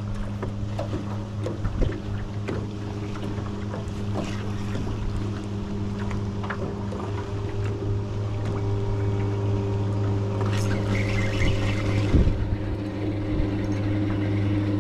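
Small boat's motor running steadily with a low, even hum, and scattered light clicks and knocks. A brief hiss comes in about two-thirds of the way through.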